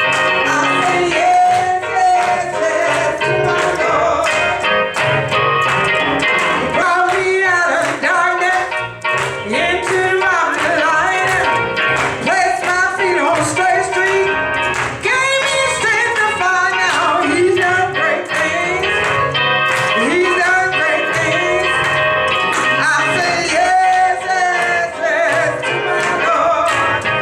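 Gospel music with singing: sustained keyboard or organ chords under a voice whose melody bends and slides.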